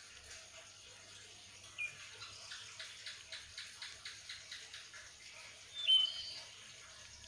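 Small scissors snipping thin green paper in a quick run of about a dozen cuts, some four or five a second, over a faint steady hiss. Two short bird chirps; the louder one comes after the cutting.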